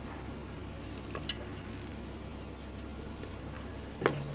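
Quiet room tone with a steady low hum, broken by a few faint light clicks and a sharper click near the end.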